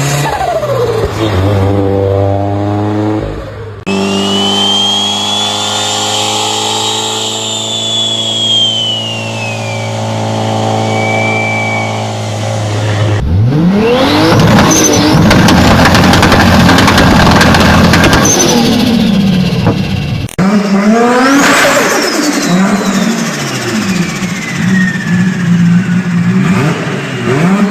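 Turbocharged car engines revving in several cut-together clips, each with the turbo's high whistle rising and falling as the revs climb and drop, and turbo flutter when the throttle is lifted. The clip changes abruptly about four, thirteen and twenty seconds in.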